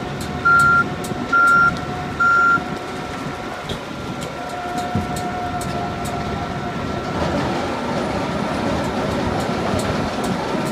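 Komptech Crambo slow-speed, high-torque grinder and its discharge conveyor running steadily. A vehicle's reversing alarm beeps three times in the first few seconds. From about seven seconds in, the ground wood chunks tumbling off the conveyor into the trailer grow louder.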